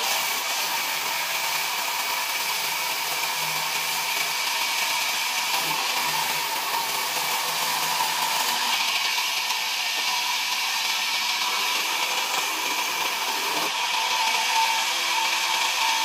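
Sawmill band saw running and ripping a log lengthwise into planks: a steady hiss of the blade cutting through the wood, with a faint high hum.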